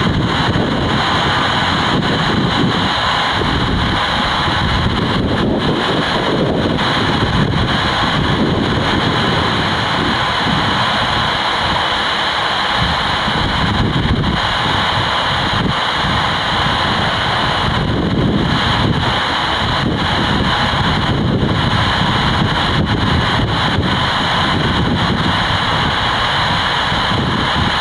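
Wind buffeting the microphone in a loud, steady rush, with the jet engine noise of a heavy Airbus A330 landing and rolling out mixed in.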